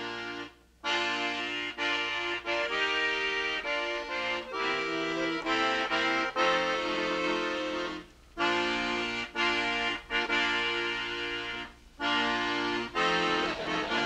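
Instrumental background music: phrases of sustained, reedy chords with notes changing every half-second or so, broken by brief pauses about a second in, near eight seconds, and twice near the end.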